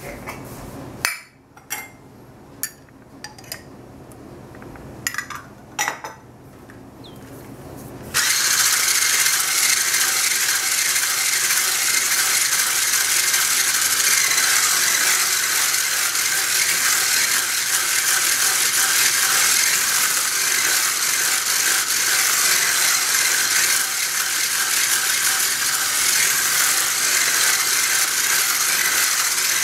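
Handheld electric stick whisk whirring steadily as it beats cake batter in a stainless steel saucepan, switched on about eight seconds in after a few clicks and knocks.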